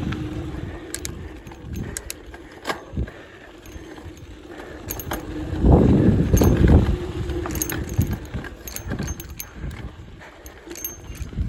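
Mountain bike riding a dirt trail: knobby tyres rumbling over the dirt while the chain and frame rattle and click over bumps, swelling into a loud rough rumble about halfway through as the bike crosses a rutted section.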